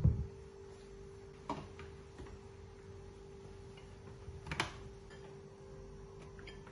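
Plastic clicks and knocks from a countertop blender's jar and base being handled: a thump at the start, light clicks about a second and a half in, and a sharper knock at about four and a half seconds, over a faint steady hum. The blender motor is not running.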